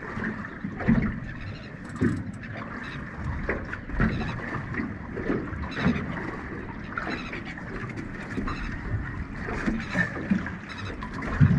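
Water slapping and lapping against a small boat's hull, with irregular knocks and splashes.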